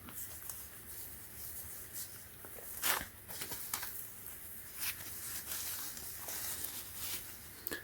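Faint rustling and handling noises from a cotton six-panel cap being turned over in the hands, with a couple of slightly louder brushes about three and five seconds in.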